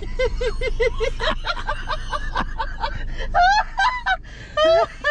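A woman laughing hard in quick, evenly spaced pulses, breaking into a few higher-pitched shrieks of laughter in the second half.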